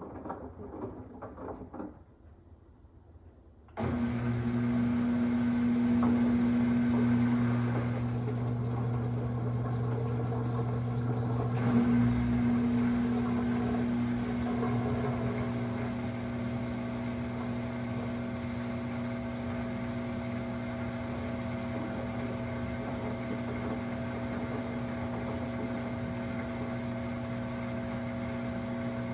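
Samsung front-load washer making a loud, steady buzz that starts suddenly about four seconds in. This is the abnormal buzzing the owner reports from the machine, louder when there is no water left to drain.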